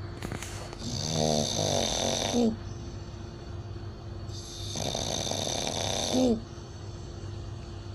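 Loud snoring: two long rattling snores about four seconds apart, each ending in a sharp rising squeak. It is an unusual style of snoring.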